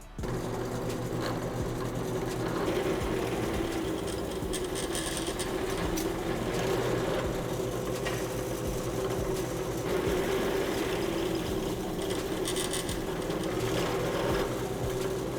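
A small motor running steadily with a fast mechanical rattle, its sound brightening briefly twice, about four seconds in and again near the end.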